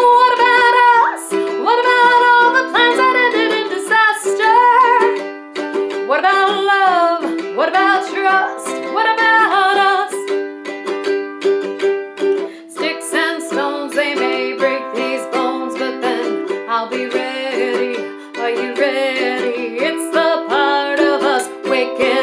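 A woman singing to her own strummed ukulele. The voice drops out briefly about halfway, leaving the strumming, then comes back.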